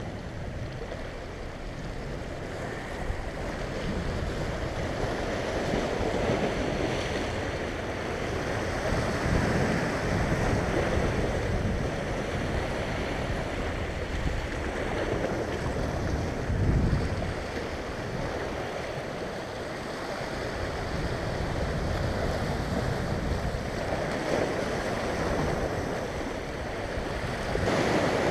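Sea waves breaking and washing over a rocky shoreline, the surge rising and falling every few seconds.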